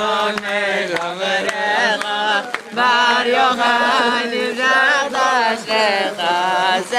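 Group of men singing a Jewish song together, loud and close, in sung phrases with brief pauses for breath between them.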